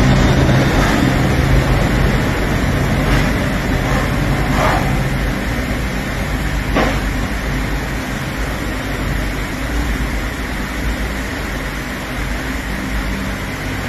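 Loud, steady engine noise, a rumble with a low hum in the first few seconds, and a few sharp clicks.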